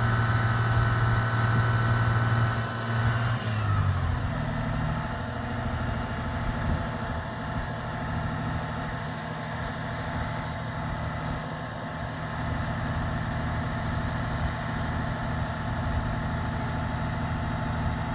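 Aerial ladder fire truck's engine running at raised speed with a steady whine, dropping about three seconds in to a lower, steady idle.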